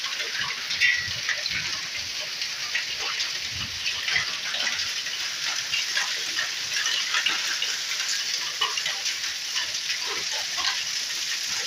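Hailstorm with heavy rain pelting down: a dense, steady hiss scattered with many small sharp ticks of hailstones striking.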